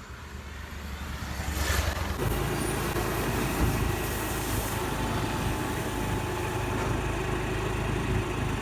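A road vehicle running at speed, its engine hum mixed with wind rushing over the microphone; it builds over the first two seconds and then holds steady.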